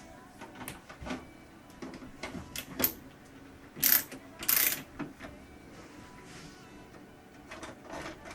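Hand-working noises on a computer case with a screwdriver: a string of small clicks and knocks, then two short, loud scraping sounds about four seconds in. A faint steady hum from the running PC sits underneath.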